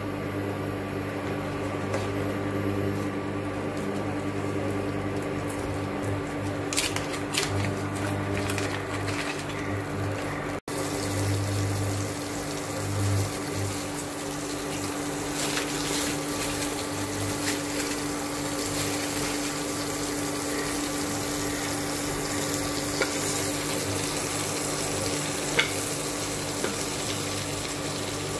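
Butter melting and sizzling in a nonstick frying pan on an induction cooktop, over a steady hum, with a few light clicks.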